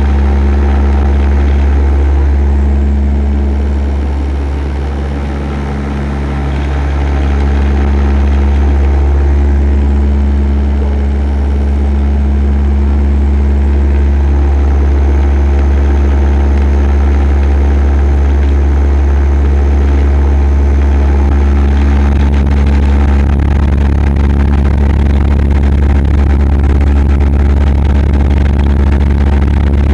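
Passenger aircraft cabin noise in flight: a loud, steady engine drone with a strong low hum and several steady tones. It dips briefly about five seconds in.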